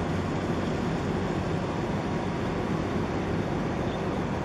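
Steady low rumble of the container ship Wan Hai 503 passing close under way, its engine noise blending with the wash of water along the hull, with no distinct events.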